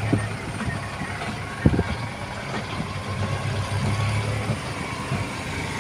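Engine of a moving road vehicle running steadily with a low hum and road noise, with a single knock about a second and a half in.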